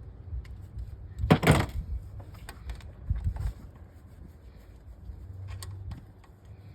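Working noises from engine repair: a loud, brief clatter about a second and a half in, then scattered smaller clicks and knocks over a low hum.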